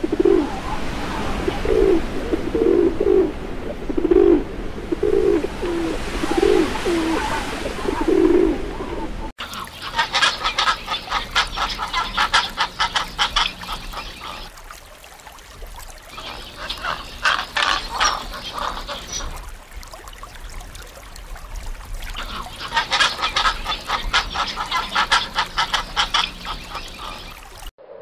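Feral pigeons cooing, about eight low coos in a row over the first nine seconds. After a cut, a different sound comes in three bouts of rapid, higher-pitched clicking, each a few seconds long.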